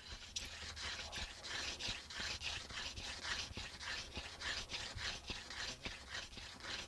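Hand-drill fire set: a mullein spindle twirled back and forth between the palms, grinding into a clematis fireboard. It makes a steady, rhythmic rasping at about three strokes a second. This is the early warm-up stage, before smoke and a coal.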